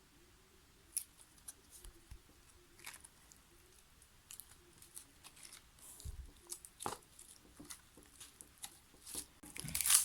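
Slime being worked by hand, giving scattered small pops and crackles that come more often in the second half and turn into a loud, dense crackling near the end.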